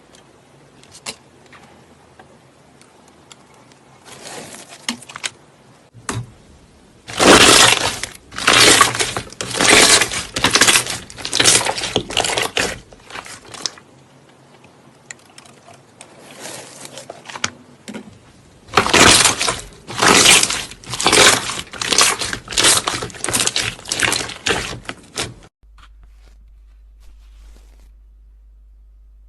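Slime being squeezed and pressed by hand, in loud crackling, crunching bursts about one or two a second, in two runs. The crackling stops about three quarters of the way through, leaving only a faint low hum.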